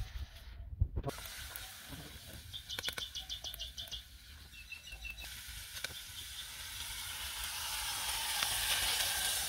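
Food frying in a pot over a wood fire, its sizzle swelling over the last few seconds as coconut water is poured in. A rapid run of about eight high chirps a few seconds in.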